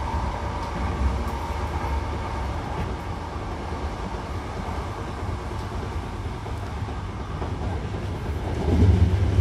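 Running noise inside a Hankyu commuter train car: a steady low rumble of wheels on rail and the running gear, with a faint whine at the start. The rumble grows louder near the end.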